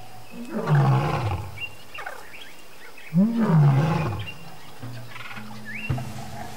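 Two loud, deep calls from a large wild animal, each about a second long, the second rising then falling in pitch, over soft background music.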